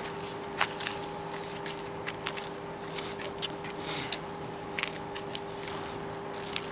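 Lemons being bitten and chewed, with irregular sharp wet clicks and crunches of the tough peel, over a steady faint hum.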